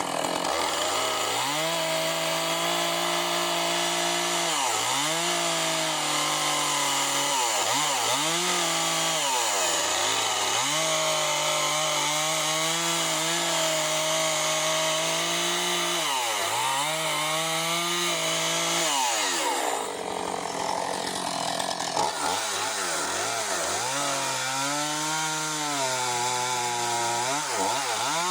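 Husqvarna 450 Rancher 50cc two-stroke chainsaw with a 20-inch bar running at high revs while ripping a big black oak log lengthwise; the engine speed sags and recovers over and over as the chain bites into the hardwood under load.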